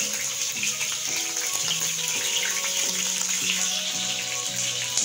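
Pieces of boiled desi chicken sizzling in hot oil in a frying pan: a steady hiss with small scattered pops. Background music with steady low notes plays underneath.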